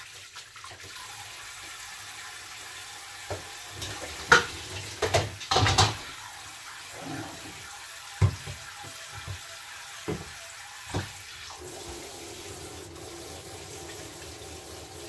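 Water running from a kitchen tap into a sink as hands are washed, with several sharp knocks and clatters, the loudest about four and six seconds in.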